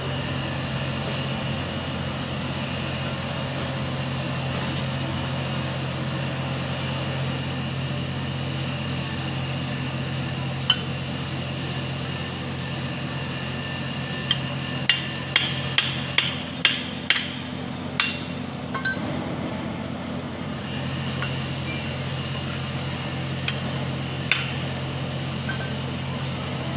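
Hammer blows on a steel drift at an Iseki Landhope TU175F tractor's front axle hub housing, metal striking metal. There is a single sharp strike, then a quick run of about eight strikes at roughly two a second around the middle, and two more near the end, over a steady background hum.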